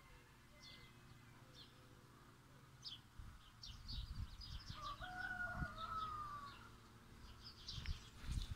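A rooster crows once, faintly, about five seconds in, while small birds chirp in quick high notes.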